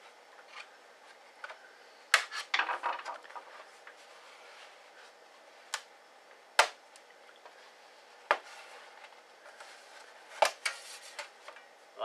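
Aluminium bottom cover of a mid-2009 MacBook Pro being worked loose by hand: about five sharp clicks with brief light metallic rattles, the last about two seconds before the cover lifts free.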